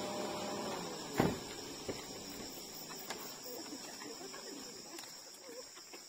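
Steady high-pitched insect drone from the surrounding vegetation, with a single thump about a second in and a fainter click shortly after.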